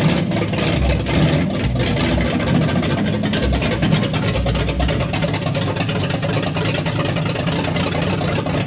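Big-block Chevy 540 V8 running loud through open headers with no exhaust system fitted, a rough, pulsing rumble at low speed.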